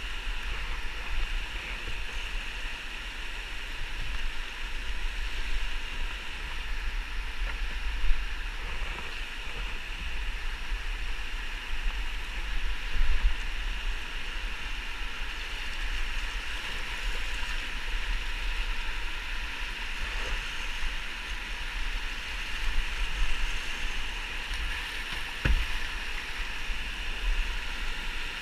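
Whitewater rapid rushing steadily around an open canoe running through it, over a low rumble, with a few knocks, the sharpest near the end.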